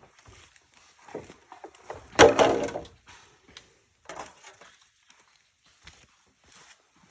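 Bamboo being handled and worked by hand: scattered wooden knocks and scrapes, the loudest a short run of knocking and rasping between two and three seconds in.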